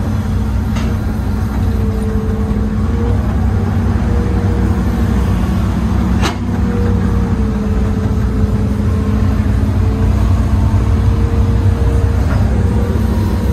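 Old Hitachi excavator's diesel engine and hydraulics running steadily from inside the cab while the boom is worked. A whine wavers slightly over the engine's rumble, and there is one sharp click about six seconds in.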